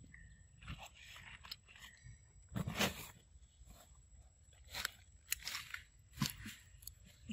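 A baby macaque biting and chewing a ripe mango: irregular bites and chews, the loudest about three seconds in.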